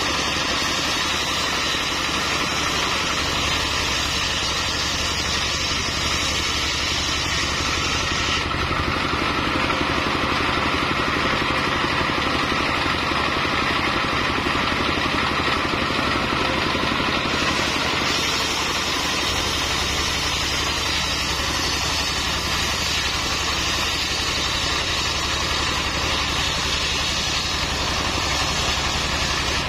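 Single-cylinder stationary diesel engine running steadily and driving a circular saw that rips a mahogany beam lengthwise. The high cutting hiss thins for several seconds in the middle, then comes back.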